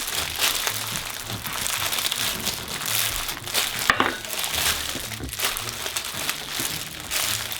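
Continuous crinkling and rustling, with many small clacks, as objects are mixed around by hand in a bowl.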